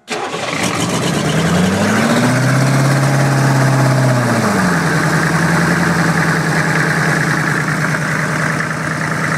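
Oldsmobile 350 diesel V8 fires up and runs on diesel fuel. Its speed climbs for a couple of seconds and drops back about halfway through, then it settles to a steady idle.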